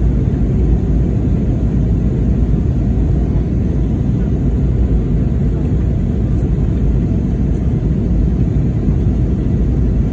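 Steady low rumble inside the cabin of an Airbus A320neo in flight: engine and airflow noise, even in level throughout.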